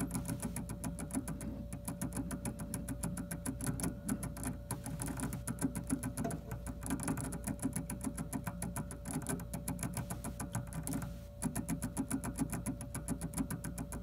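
Coloured gerbil licking the metal spout of a cage water bottle: rapid, even clicking, several licks a second, with a short break about eleven seconds in.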